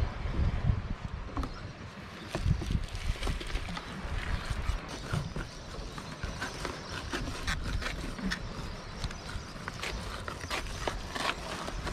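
Knife skinning a fish fillet on a plastic cutting board: irregular small scrapes and taps, over an uneven low rumble.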